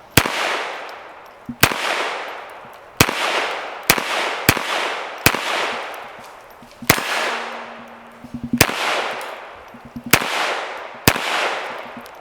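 Smith & Wesson Model 422 pistol firing .22 Long Rifle, ten shots at an unhurried, uneven pace about one to two seconds apart. Each crack is followed by a long fading echo.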